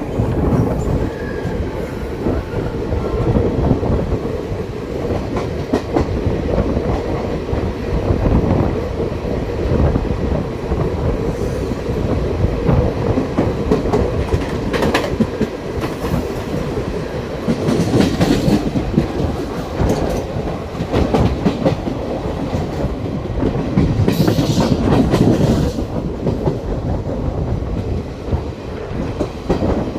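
Simhadri Express passenger train running on the rails, its wheels clattering steadily over the rail joints, with a couple of louder surges partway through.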